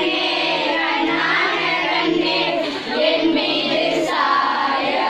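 A group of mostly children's voices singing a song together, holding each note for about half a second.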